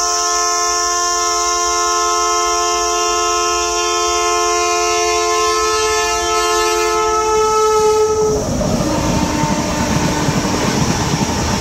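Express train's locomotive horn held as one long multi-tone blast, getting louder as the train nears, then cutting off about eight seconds in. It gives way to the rushing rumble of LHB coaches passing close at speed.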